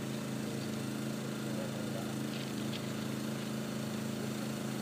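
Diesel engine idling steadily, an even low hum with no change in speed.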